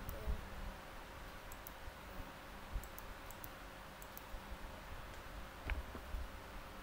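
Faint, irregular clicks of a computer mouse, in small groups of two to four.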